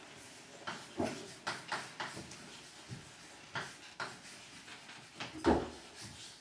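Chalk writing on a blackboard: a run of short taps and scratches as each word is written, with the loudest knock about five and a half seconds in.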